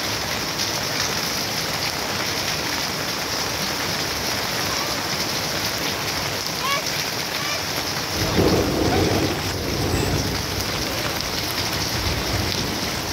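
Steady rain falling on wet ground and foliage. About eight seconds in, a low rumble of thunder rises, peaks briefly, then fades over the next few seconds.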